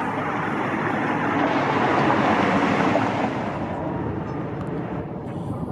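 A passing road vehicle: a noisy rush of tyre and road sound that swells to a peak a couple of seconds in, then fades away.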